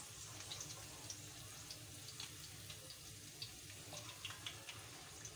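Faint, steady sizzle of hot oil around a bachka, a rice-and-pea fritter, shallow-frying in a pan, with scattered small crackles.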